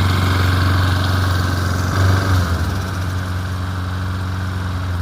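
Petrol lawn mower engine running steadily after starting, with a brief surge in revs about two seconds in.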